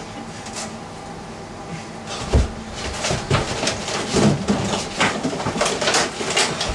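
A thump about two seconds in, then a run of irregular knocks and clatter, like props or furniture being handled and moved in a small, crowded room.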